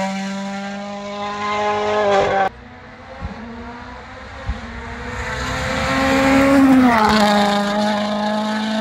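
World Rally Car engine running at high revs on a rally stage. Its steady note drops away abruptly about two and a half seconds in, then builds up loud again, and the pitch falls as the car passes about seven seconds in.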